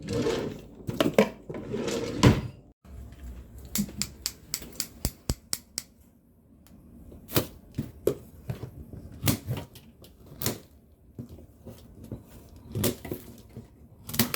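Irregular handling noises: a couple of seconds of scraping and knocking, then a long run of scattered sharp clicks and knocks.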